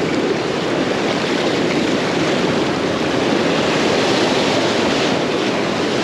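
Ocean surf washing onto the shore: a steady, loud rush of breaking waves that swells a little over the few seconds.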